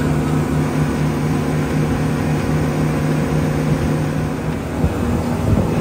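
Speedboat engine running at speed: a steady low drone over the rush of water and wind past the boat. Near the end the drone dips and a few knocks come through.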